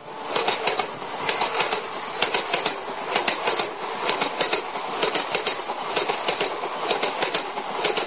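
Train running along the rails, its wheels clacking over the rail joints in quick repeated groups over a steady rushing noise.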